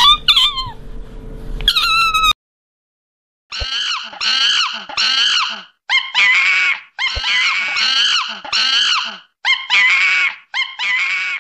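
Otters squeaking shrilly for about two seconds. After a short gap comes a run of about a dozen short, high, arching calls from young macaques, each well under a second long, coming in quick succession.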